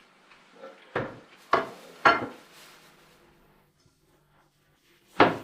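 Kitchenware knocking and clinking: three sharp knocks about half a second apart about a second in, and one louder knock near the end.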